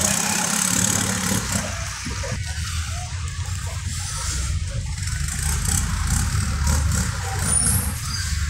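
Longtail boat engine running steadily on the river, a continuous low rumble.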